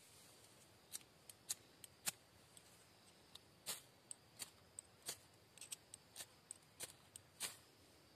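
Dry grass and leaf tinder crackling in short, sharp clicks at an uneven pace, about two a second, as hands press and shape it into a tinder nest.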